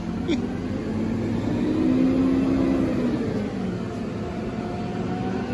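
Crane truck's engine running steadily, revving up about two seconds in and easing back down a second or so later, while the crane's hook and slings are worked over a pad-mounted transformer before the lift.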